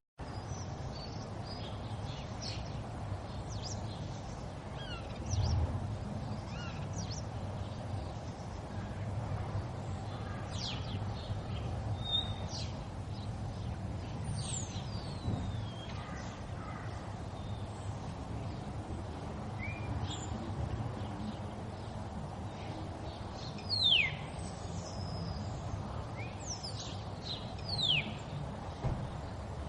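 River water running steadily, with small birds calling over it: short, high, downward-sweeping chirps scattered throughout, the loudest two coming near the end.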